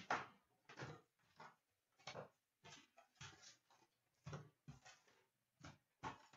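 Trading-card packaging being handled: short irregular rustles and scuffs of card packs and box cardboard, about two a second.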